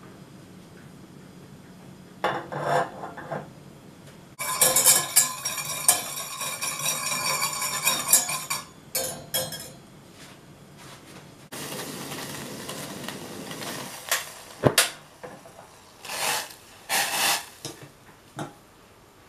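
Wire whisk stirring and scraping in a stainless steel saucepan of water and sugar, in several spells of rapid clinking, the longest lasting about four seconds. A sharp click comes about fifteen seconds in, then metal knocks as the pan is set down on a wire trivet.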